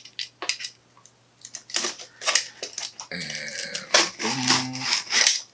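A blade slicing open a cardboard comic book mailer (a Gemini mailer): a run of short, scratchy cuts and rasps, with the cardboard rustling as it is worked open.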